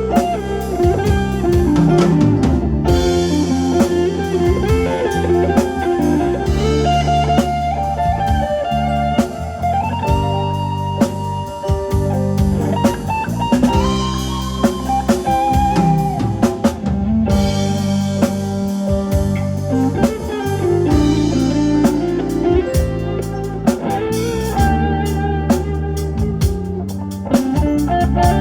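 Live band playing an instrumental piece, a guitar carrying the melody over a drum kit.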